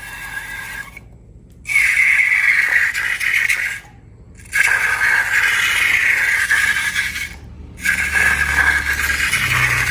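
Scraping and rattling of slime-making materials being worked by hand, in three edited clips separated by short silent cuts.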